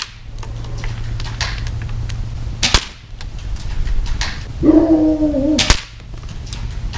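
Airsoft shots cracking into an LCD computer monitor's screen: scattered pops and sharp hits, two loud ones about a third of the way in and near the end, cracking the panel. A pitched whine lasting about a second comes just before the last loud hit.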